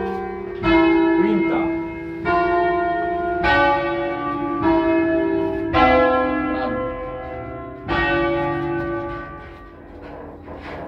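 A peal of five bronze church bells, cast in 1940 and tuned to a scale on C, rung by hand with ropes and heard close up from inside the bell tower. About six strokes come one to two seconds apart, each bell ringing on with long, layered overtones. A longer gap near the end lets the sound fade.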